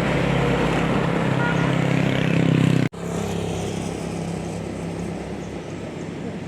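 A tour bus's diesel engine running close by, growing louder for about three seconds. The sound then cuts off abruptly and comes back as a quieter engine and road noise.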